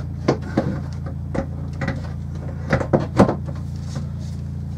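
Scattered wooden knocks and clicks as a wooden wall plate rack is handled against a wall, a cluster of them about three seconds in. A steady low hum of the boat's engine running lies underneath.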